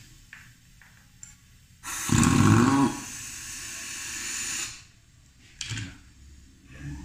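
Air-powered impact wrench driving a nut on a truck air brake booster housing: it starts with a loud burst about two seconds in, then runs on with a steady hiss of exhaust air for about two seconds more before stopping, followed by a short click.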